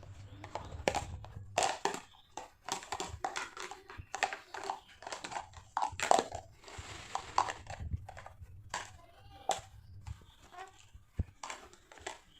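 A baby grumbling and fussing in short whiny vocal sounds, mixed with frequent clicks and clatter of plastic toy kitchen pieces being handled.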